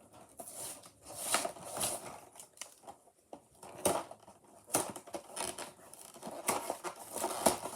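Irregular crinkling and clicking of a Matchbox 5-pack's cardboard and plastic packaging being worked open by hand.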